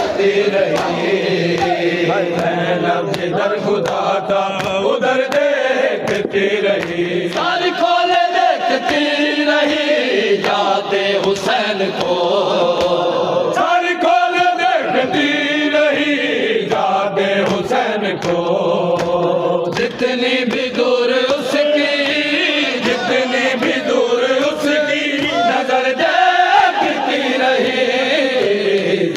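Men's voices chanting a noha together in a rising and falling melody, over sharp, repeated hand slaps on bare chests (matam).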